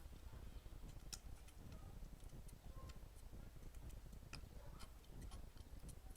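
Baby goats eating: faint, irregular small clicks and ticks, two of them a little sharper, about one second and about four seconds in.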